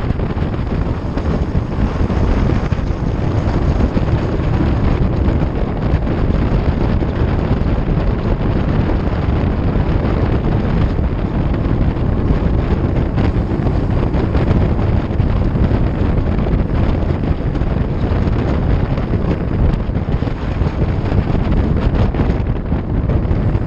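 Wind buffeting the microphone of a camera on a road bike ridden at speed: a loud, steady, deep rush of wind noise.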